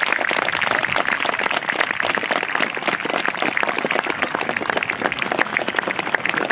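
A crowd of spectators applauding: dense, steady clapping from many hands.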